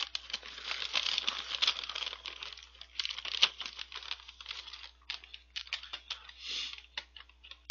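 Snack bag crinkling and rustling as it is handled. The crackle is dense for the first three seconds or so, then thins to scattered crackles, with another short burst near the end.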